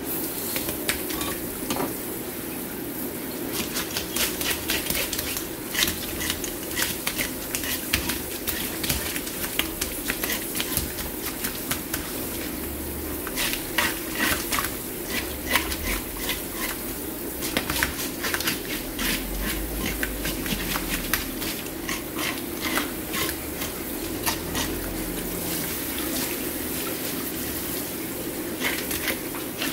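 Water spraying steadily from a hose onto a red sea bream on a plastic cutting board, with quick irregular scraping and rubbing strokes as its scales are taken off.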